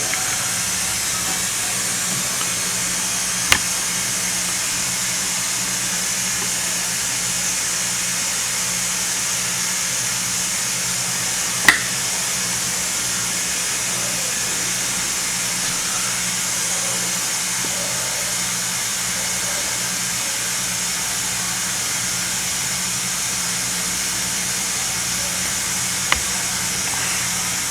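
Homemade air compressor running steadily with a low hum and a hiss while it builds pressure. Three short sharp clicks stand out over it.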